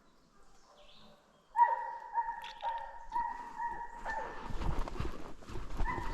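Hunting hounds baying in quick succession, about six calls at roughly two a second starting about a second and a half in, as they run a bear they may just have jumped. Crunching, shuffling noise follows near the end.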